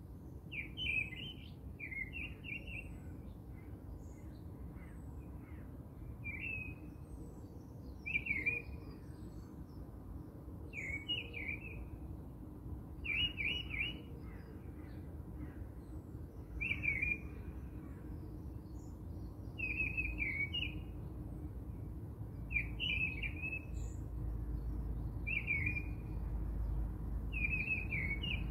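A small bird chirping in short, quick phrases, about one every two seconds, over a steady low background hiss.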